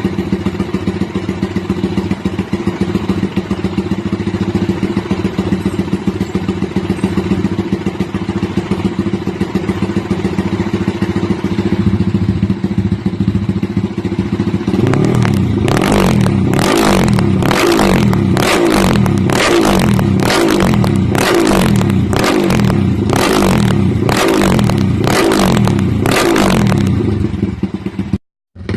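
Yamaha Y15ZR's 150cc single-cylinder four-stroke engine idling steadily, then blipped about a dozen times in quick revs, roughly one a second, from about halfway through. The sound cuts off abruptly near the end.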